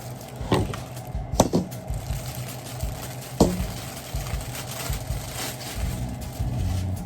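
Kitchen clatter: a few sharp knocks of utensils or dishes, about half a second, a second and a half and three and a half seconds in, over a low steady hum.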